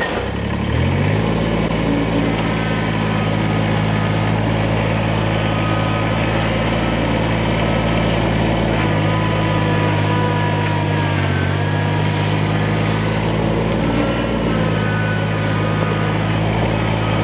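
Kubota BX2370 compact tractor's three-cylinder diesel engine revving up in the first second, then running steadily at working speed as the tractor drives its loader over a gravel pile. The engine dips briefly about eleven seconds in.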